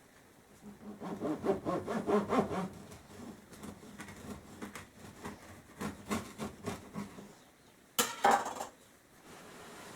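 Knife sawing back and forth through a crusty loaf of home-baked bread, in two runs of quick strokes, then a sharp knock about eight seconds in.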